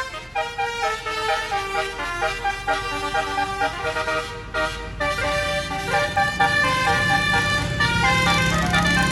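Telolet basuri multi-note bus horn, a 24-note set, playing a quick melody of stepped tones. From about halfway in, a low engine rumble comes up beneath it.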